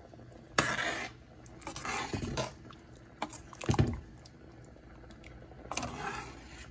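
Metal ladle stirring rice and beans in a pot of cooking liquid: four bouts of sloshing and scraping against the pot, one with a dull knock a little before the middle.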